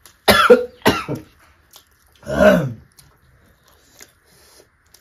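A person coughing twice, sharply, about half a second apart, then a short voiced throat-clearing about two seconds later.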